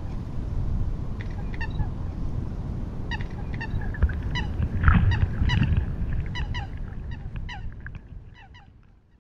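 Many short repeated bird calls over a steady low rumble, the whole fading out near the end.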